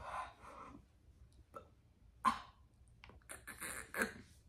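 A person coughing, clearing her throat and gagging in short bursts while struggling with a hard, chewy dried snack that she cannot chew and is about to spit out.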